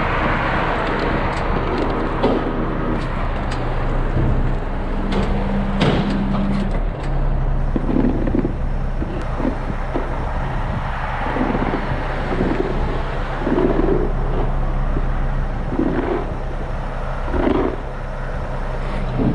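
Heavy vehicle engine running steadily, with a few sharp knocks about five to six seconds in and a low pulse repeating about every second and a half through the second half.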